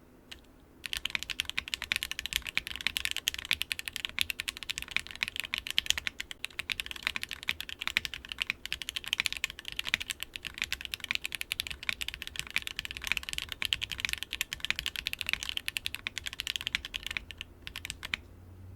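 Continuous fast typing on a TKD PT1 75% top-mount mechanical keyboard fitted with Sillyworks x HMX Sonja HC switches on an unfoamed aluminium plate. It is a dense, even stream of keystroke clicks that starts about a second in and stops shortly before the end.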